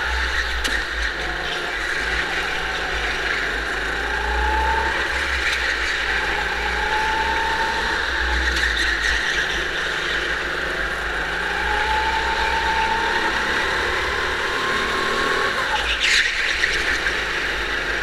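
Go-kart running flat out on an indoor track, heard muffled through a waterproof camera case: a steady drive and tyre noise with a whine that rises in pitch several times as the kart accelerates out of corners, and a brief sharp knock near the end.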